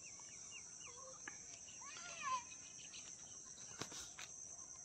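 Faint, steady high-pitched chirring of crickets, with small bird chirps and one brief louder call about two seconds in.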